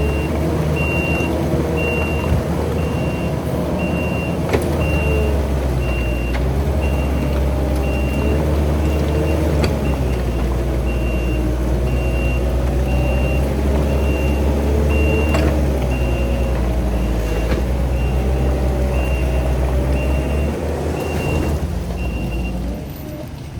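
Skid steer's diesel engine running hard at high throttle, its pitch rising and falling as the machine strains, while its backup alarm beeps about once a second. The machine is reversing under heavy load, trying to pull free of quicksand. Near the end the beeping stops and the engine drops back.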